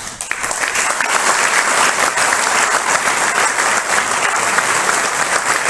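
Audience applauding: many hands clapping together, building up over the first second and then holding steady.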